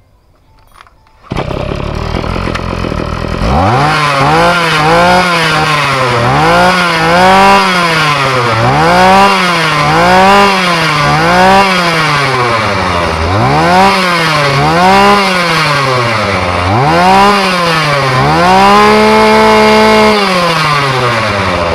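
Small two-stroke brush-cutter engine starts about a second in and runs, then is revved up and dropped back about a dozen times in quick blips, one held a little longer near the end before it falls back to idle. The throttle is being worked by hand at the carburetor to test and adjust the newly fitted carburetor.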